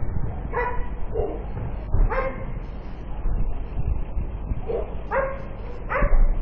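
A dog barking repeatedly, about six short barks in irregular groups, over a low steady rumble.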